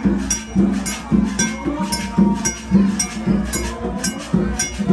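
Procession music: a drum and small metal cymbals striking together on a steady beat, about two strikes a second, each clink bright and metallic.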